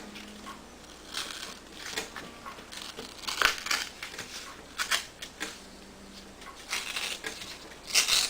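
Copy paper being torn apart along a folded crease in several short rips, with rustling of the sheet between them.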